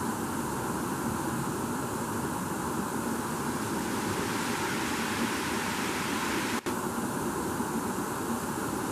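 Shallow rocky stream rushing and splashing over boulders in a steady rush, cutting out for an instant about two-thirds of the way in.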